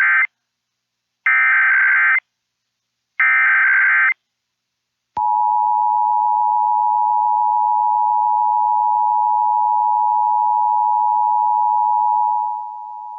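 Emergency Alert System tones opening a Required Monthly Test: the end of one and then two more of the SAME header's buzzing digital data bursts, each about a second long with a second of silence between. About five seconds in comes the two-tone attention signal, a steady dual-pitched tone that holds and drops in level near the end.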